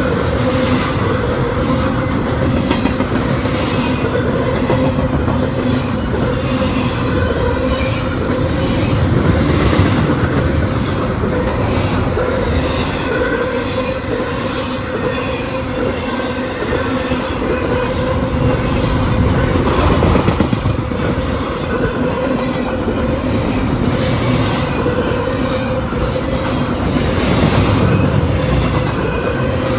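Double-stack intermodal freight train rolling past at close range: steady rumble of steel wheels on the rail, with a steady tone running through it and a few scattered clicks.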